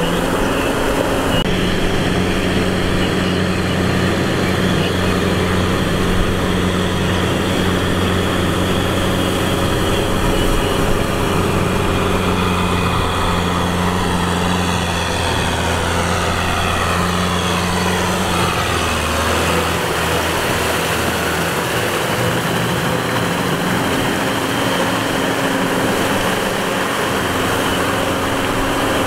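Tractor diesel engine running steadily under load as the tractor pulls a rear rotavator through flooded mud. A faint falling whine can be heard from about halfway through to two-thirds in.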